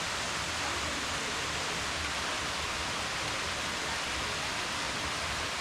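Steady rush of a waterfall, falling water making an even hiss without a break.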